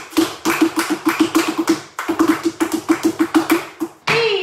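Flamenco footwork (zapateado): heels and soles of flamenco shoes striking a wooden floor in rapid runs of about six strikes a second, each hit ringing briefly. Short breaks come about two and four seconds in.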